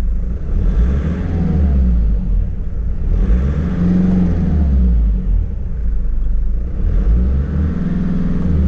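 Nissan Terrano 4x4 engine running under load while driving, heard from inside the cab. It has a rough, tractor-like sound and its pitch rises and falls as it revs, with a low drone that the driver suspects comes from a worn dual-mass flywheel.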